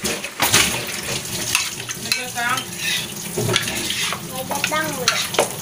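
Tap water running into a stainless-steel sink and splashing over a plastic bowl being rinsed, with light knocks and clatter of plastic dishes.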